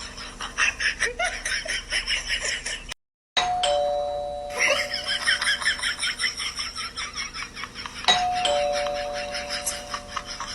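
Doorbell chime ringing ding-dong twice, each time a higher note falling to a lower one, about five seconds apart.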